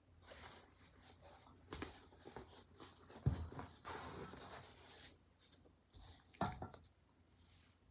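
Faint rustling and scraping of things being handled, with a soft low thump a little over three seconds in and another about six and a half seconds in.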